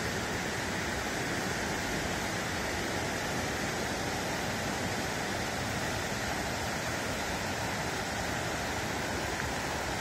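Rocky stream running over small cascades between boulders: a steady rush of water.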